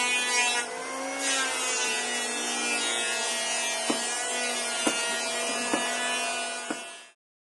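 Electric power tool working wood, its motor running with a steady whine. The pitch sags briefly about a second in, as if under load. A few sharp ticks follow later, and the sound cuts off suddenly near the end.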